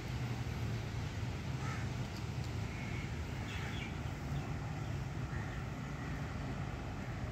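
Outdoor ambience: a steady low rumble with several short bird calls scattered through it.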